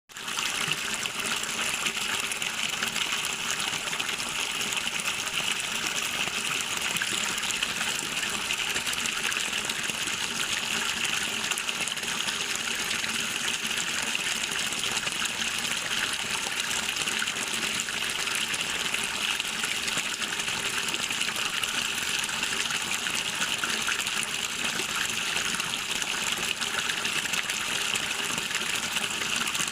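Running water rushing steadily, an even hiss without breaks.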